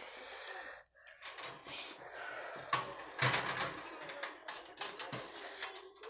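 Irregular clicks and rustling, with the loudest cluster about halfway through: handling noise around a wire birdcage.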